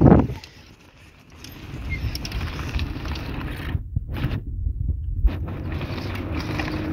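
Car driving over a rough dirt road, heard from its open side window: a low, uneven rumble of tyres and body on the rutted surface, building up about a second and a half in and then holding steady.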